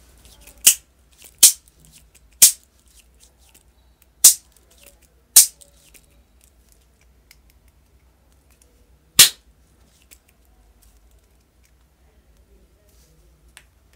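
Small plastic toy pistol being handled, loaded and cocked: a string of sharp plastic clicks from its spring mechanism, about six in all with uneven gaps and the last one nearly four seconds after the others.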